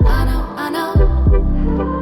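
Pop song playing, an instrumental stretch between sung lines with a deep kick drum beating about once every one and a half seconds under sustained chords.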